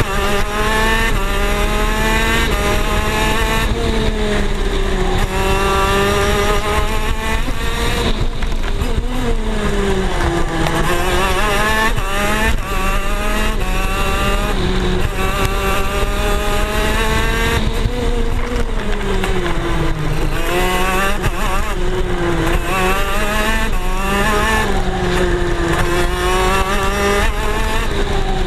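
Onboard sound of a KZ shifter kart's 125cc two-stroke engine at racing speed. It revs up through the gears in rising sweeps, the pitch dropping sharply at each upshift. Twice the revs fall and waver as it brakes and shifts down for corners.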